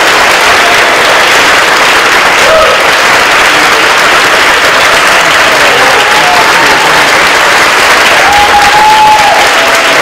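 A large audience applauding steadily and loudly, with a few voices calling out over the clapping.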